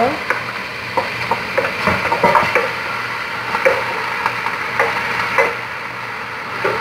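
Chunks of raw camel meat being scraped with a wooden spatula from a metal bowl into a pot of frying onions: a steady sizzle under a string of short knocks and scrapes of spatula on bowl and pot.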